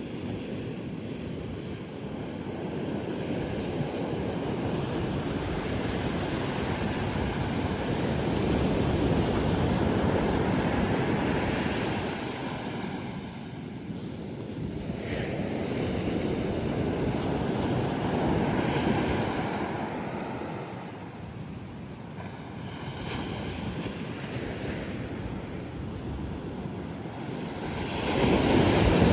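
Pacific Ocean surf: waves breaking and washing in, swelling and fading every several seconds, with a louder wave arriving near the end.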